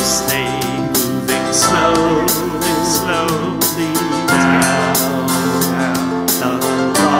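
A man singing a folk-style story-song over strummed acoustic guitars, with layered harmony vocals; the voices hold a long note in the second half.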